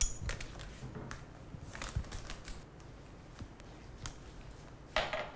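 A glass and a carton of milk being handled in a kitchen: scattered light clicks and knocks, with a louder, longer noise about five seconds in.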